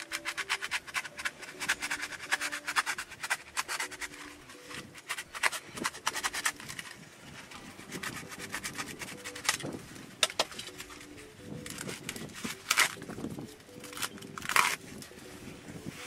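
Utility knife cutting foam pipe insulation: a fast run of crackly strokes for the first few seconds, then scattered scrapes and rustles as the foam is handled, with two sharper strokes near the end.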